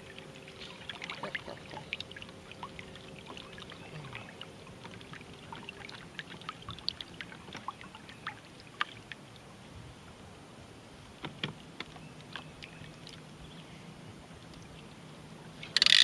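Water lapping and trickling against a small canoe's hull as it moves slowly, heard as scattered little splashes and drips, with a faint steady hum for the first several seconds. A sudden loud rush of noise starts right at the end.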